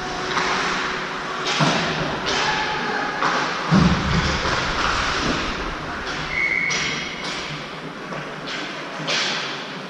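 Ice hockey rink game noise: a steady scraping haze with several sharp knocks and thumps, the loudest a heavy thud about four seconds in, typical of the puck and players hitting the boards.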